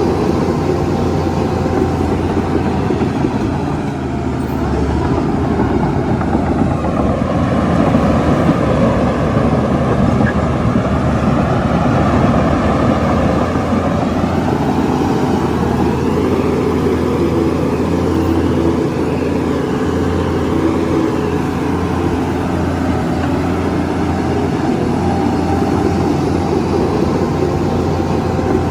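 Shantui crawler bulldozer's diesel engine running steadily at work, with a short dip in level about four seconds in and a slightly louder stretch from about eight seconds.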